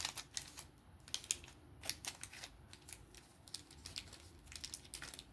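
Light, irregular clicking and ticking of small metal parts being handled: a folding knife's Skiff caged pivot bearings being picked out of the blade and handle.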